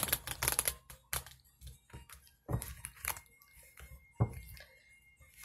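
A tarot deck being shuffled by hand: a short rapid rustle of cards at the start, then a few separate light knocks and slaps as the cards are handled and squared.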